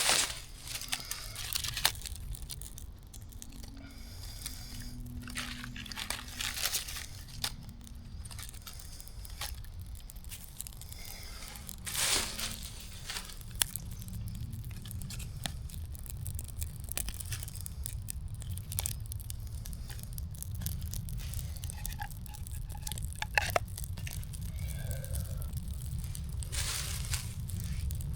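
Intermittent rustling and tearing noises, a handful of short loud bursts a few seconds apart, over a steady low rumble.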